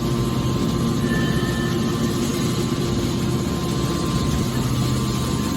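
Hydraulic can baler's motor and pump running with a steady hum.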